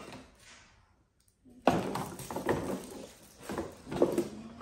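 Cardboard toy-grocery packaging and play-food boxes being handled on a table: after a short dead gap, a sharp knock, then irregular rustling and clatter.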